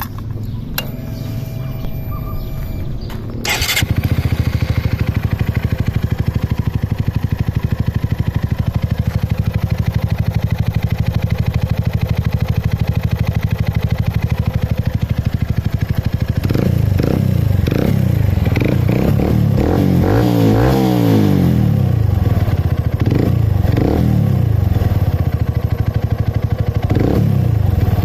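Honda CB125F's single-cylinder four-stroke engine breathing through an aftermarket imitation Akrapovic slip-on exhaust: the starter whirs, the engine catches about three and a half seconds in, settles into a steady pulsing idle, then is revved repeatedly with throttle blips from about the middle onward, the biggest rev near the two-thirds point.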